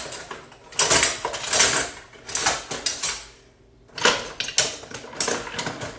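Metal kitchen utensils clattering and rattling as a drawer of them is rummaged through, in three bursts of about a second each.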